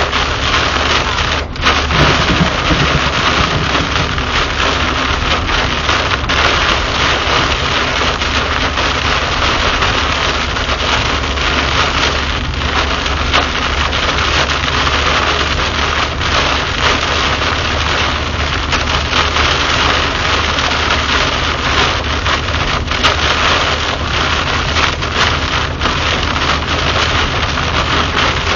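Heavy rain pelting a moving car's windshield and roof, heard from inside the cabin, over a steady low rumble of the car and its tyres on the flooded highway.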